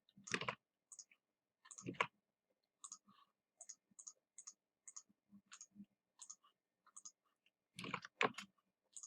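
Computer mouse clicking: a series of faint short clicks, about one or two a second, with a few louder knocks in between.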